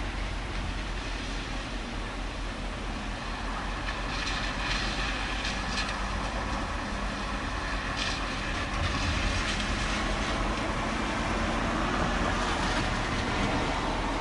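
Thunderstorm: a steady rushing noise with low rolling rumble, which swells about four seconds in, with brief hissing surges.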